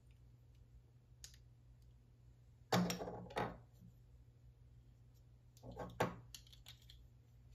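LEGO plastic parts clicking and clattering as a mech is pieced together by hand, with scattered small clicks and two louder clatters about three and six seconds in. A steady low hum runs underneath.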